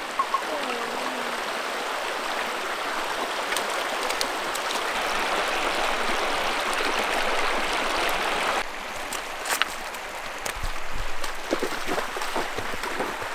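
Creek water rushing steadily over a small waterfall. About two-thirds of the way through the rush suddenly drops to a softer flow, with a few short knocks or splashes.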